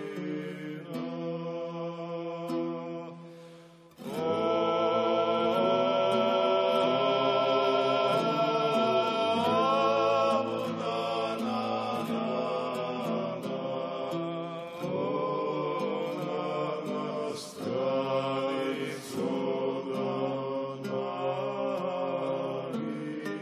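Male vocal ensemble singing a Georgian folk song in close polyphony: a solo voice over a chorus holding long drone notes. The singing thins out briefly about four seconds in, then comes back fuller and louder.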